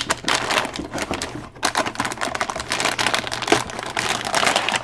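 Plastic anti-static bag around a motherboard crinkling and rustling as it is gripped and lifted out of its box, a dense rapid crackle throughout.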